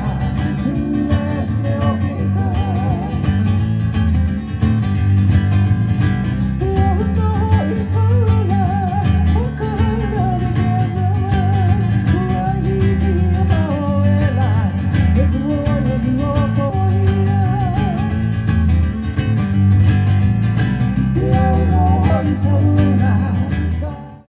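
A song with a singing voice over strummed acoustic guitar and a steady bass line. It cuts off abruptly near the end.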